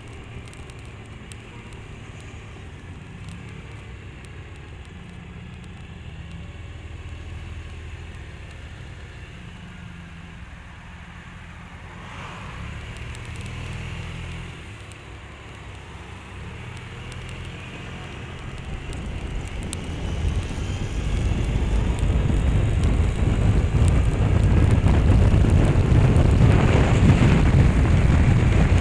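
Suzuki Burgman scooter's engine running steadily at low speed, heard from the handlebar. From about twenty seconds in, wind noise on the microphone rises and becomes the loudest sound.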